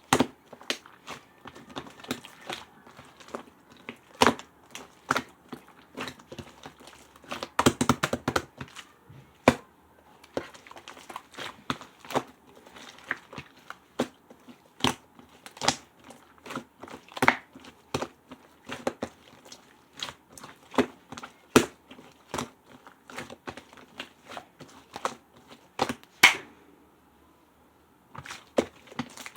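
Slime being squeezed and pressed by hand, giving irregular sharp clicks and pops with soft crinkly squishing between them; a brief pause near the end before the popping starts again.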